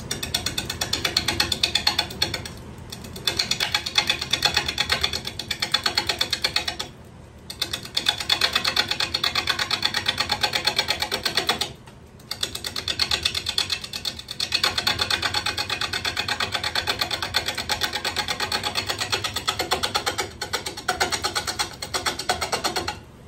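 Large gouge cutting a spinning red cedar bowl blank on a wood lathe as the rough blank is trued, making a rapid rhythmic chatter. The cut comes in several passes broken by short pauses, over the steady hum of the lathe motor.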